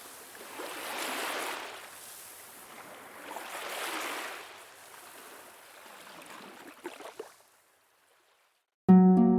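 Waves washing in on a shore, two slow swells of surf noise that rise and fall, then weaker wash with a few small ticks fading out. After a moment of silence, a harp starts playing just before the end.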